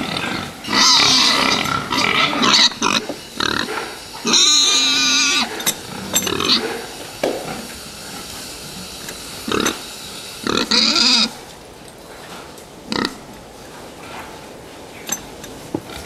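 Crowded fattening pigs squealing in several loud, shrill bursts, the longest about a second and a half, with grunting between. After about twelve seconds it quietens to low grunting and a few sharp knocks.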